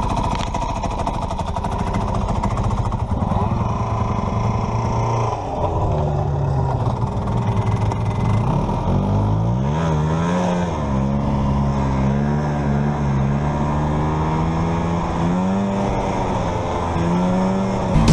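Vintage two-stroke snowmobile engine running and being revved, its pitch rising and falling several times.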